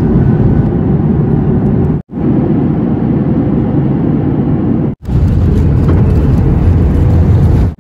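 Cabin noise from a window seat of a Boeing 737 MAX airliner: a steady rumble of jet engines and airflow. It is cut abruptly twice, about two and five seconds in, and the last part, on the runway, has a heavier low rumble.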